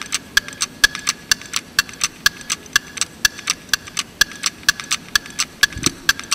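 Ticking clock sound effect of an audience-voting countdown timer: a steady tick-tock of about two louder ticks a second with softer ticks between. A single low thump comes near the end.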